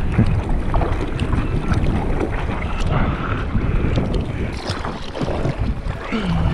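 Water sloshing and splashing against a surfboard as it is paddled through choppy water, with wind rumbling on the board-mounted microphone.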